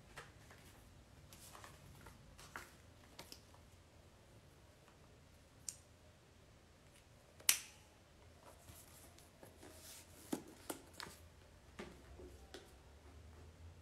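Scattered faint clicks and taps over a low steady hum, with one sharper click about seven and a half seconds in and a few more around ten to twelve seconds in.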